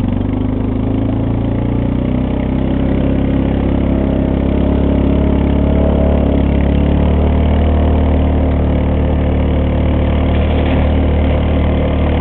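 Four-wheeler engine running steadily at low speed.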